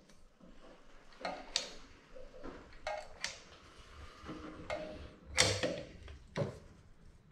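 Caulking gun squeezed to lay a bead of clear silicone along the rim of a stainless steel sink: about seven light, irregularly spaced clicks and creaks from the trigger and plunger.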